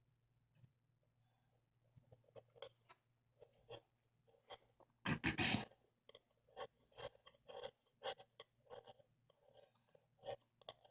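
Short, irregular scratching and scraping strokes, with a louder scrape about five seconds in: a small hand tool scraping old adhesive and dirt off the edges of a Samsung Galaxy S5's frame to clean it for a new screen.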